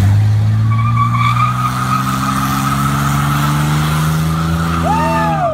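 A pickup truck's engine is held at high revs through a burnout while its spinning rear tires squeal. The engine note holds steady and creeps slightly higher, then drops as the throttle comes off near the end, with a short rising-and-falling squeal.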